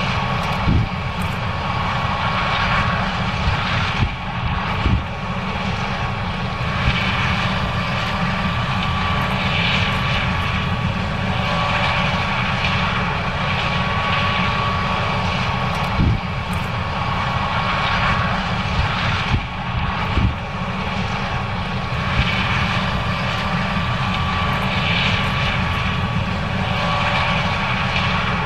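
John Deere S670 combine running steadily under load while harvesting corn: a dense machine drone with a steady high whine, broken by a few short thumps about 1, 5, 16 and 20 seconds in.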